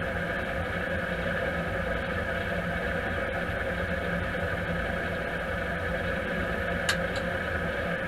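New Holland CX8070 combine harvester running with a steady machine drone, with one short click about seven seconds in.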